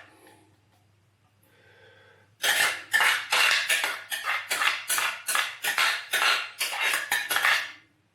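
Spoon scraping salsa out of a container in quick repeated strokes, about two and a half a second, starting a couple of seconds in.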